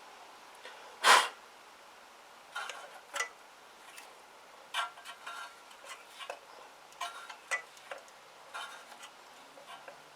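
Hard objects being handled: one sharp knock about a second in, then irregular light clicks and taps, like small tools or parts being picked up and set down while searching for a spark plug cap.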